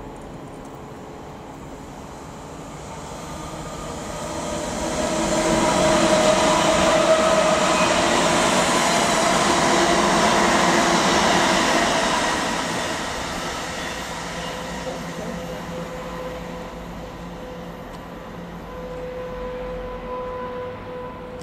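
West Midlands Railway Class 730 electric multiple unit passing: a rush of wheels on rail with a humming electric whine builds to a loud peak about six seconds in, holds for several seconds, then fades. A steadier, quieter electric hum is left near the end.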